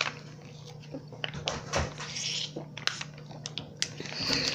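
Two kids sucking hard through straws from Capri Sun foil drink pouches: scattered small clicks and two short hissing slurps, one about two seconds in and one near the end.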